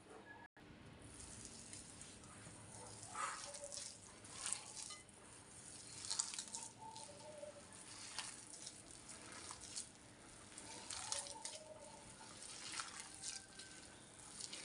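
A hand squishing and kneading a wet mixture of grated potato, flour and egg in a glass bowl: soft, irregular squelches and crackles.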